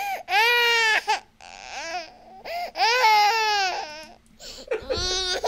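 A crying-baby sound effect: an infant wailing in long cries that rise and fall in pitch, three of them, with shorter sobbing cries between. It keeps playing and won't stop.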